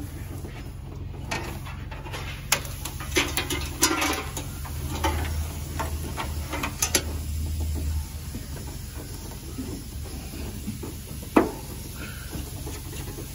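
Hands handling and routing an old truck's wiring harness under the hood: rustling, scraping and light clicks of wires and loom against sheet metal, busiest in the first half, with one sharp click about eleven seconds in, over a steady low hum.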